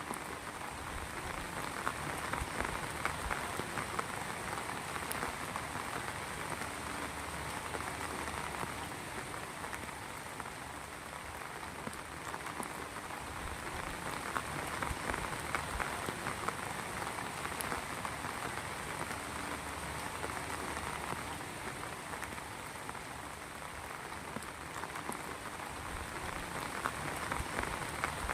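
Heavy rain falling steadily on a surface, dense pattering drops that swell and ease slightly in intensity.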